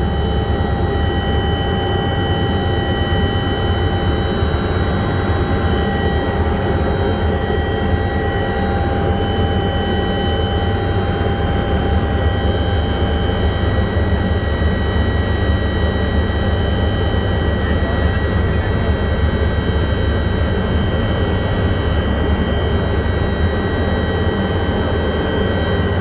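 Aircraft in flight heard from inside the cabin: a loud, steady engine drone with a deep rumble and several steady high-pitched whining tones over it.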